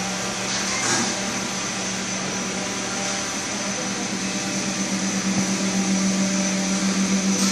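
Electric gear motor running steadily as it drives a large steel turntable through a belt and pulley, a constant low hum with a faint high whine. In the last couple of seconds the hum grows a little louder and wavers rhythmically.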